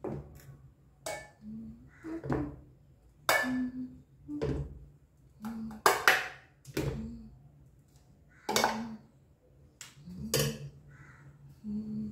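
Steel spoon scraping inside a steel pot and clinking against a steel bowl while scooping out a thick mixture: a dozen or so separate scrapes and clinks, irregularly spaced.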